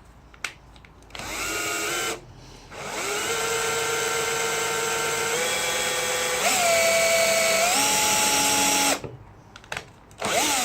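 Power drill driving screws into wooden floor planks. It runs in three goes: a short burst, then a long run of about six seconds whose pitch steps up a few times, then another short burst near the end.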